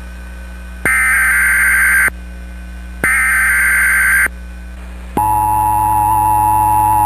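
Emergency Alert System SAME header: two harsh, buzzy digital data bursts, each a little over a second long, about a second apart, encoding the coming alert's details. About five seconds in, the EAS two-tone attention signal (853 and 960 Hz together) starts as a steady tone, announcing that an alert message follows.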